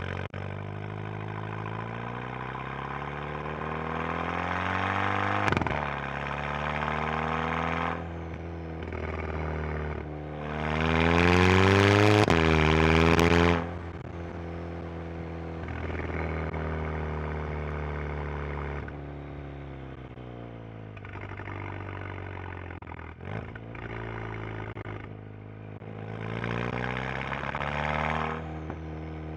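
Exhaust of a 2011 Volkswagen GTI Mk6's turbocharged 2.0-litre four-cylinder, running through a Unitronic downpipe with the resonator deleted and the stock rear muffler gutted of its fiberglass. Revs climb slowly and then drop, rise loudest in a burst about ten to thirteen seconds in, and climb again near the end. There are no crackles or pops.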